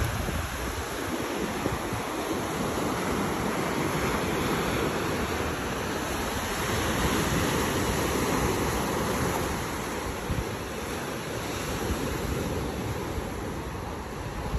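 Gulf surf washing onto the beach, a steady rush of breaking waves that swells and eases slightly, with some wind on the microphone.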